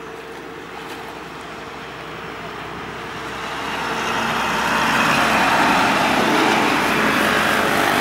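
A passing motor vehicle's engine swelling steadily louder as it approaches, loudest about five seconds in, then easing slightly.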